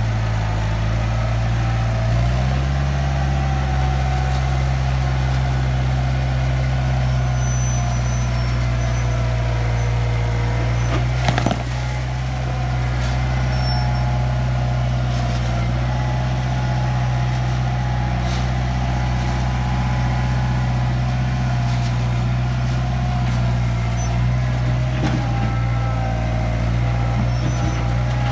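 Diesel engine of an International Harvester backhoe loader running steadily under working load, its note stepping up about two seconds in, with a fainter wavering whine above it. A single sharp clank comes about eleven seconds in.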